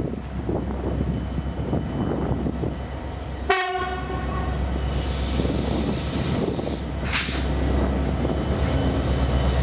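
Vossloh Euro 4000 (class 335) diesel locomotive hauling a log train past at low speed, its two-stroke V16 engine giving a steady low drone that grows a little louder as it comes alongside. A short blast of the locomotive's horn sounds about three and a half seconds in, and a brief hiss comes near seven seconds.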